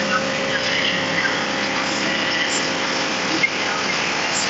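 Portable sawmill running steadily with a constant engine hum and noise.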